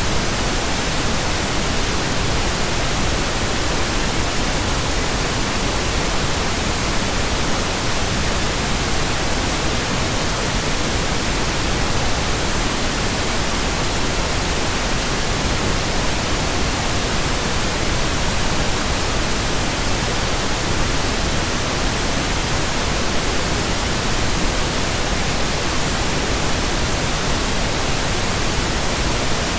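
Steady, unbroken synthetic pink noise: an even hiss spread across all pitches, with no tones, changes or breaks.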